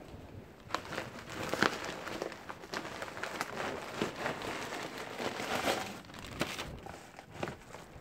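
Crinkling and rustling of packaging, with scattered light knocks and clicks, as items are handled on a shelf and a padded mailer envelope is picked up.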